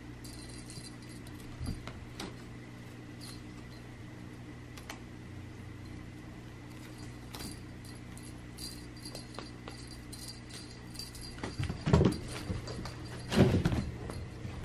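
A cat playing with a toy mouse on a string over carpet: faint scattered clicks and rustles over a steady low hum, then two louder thumps a second and a half apart near the end.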